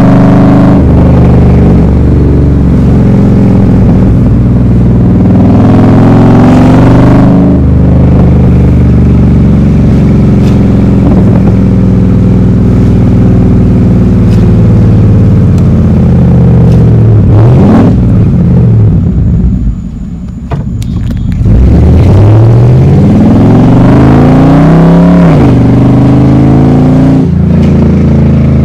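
A Chevrolet Camaro SS's V8 running loud through its exhaust with NoWeeds cut-out diverters, revving up and pulling through the gears. The engine note rises several times, drops off briefly about twenty seconds in as the throttle is lifted, then climbs again before settling.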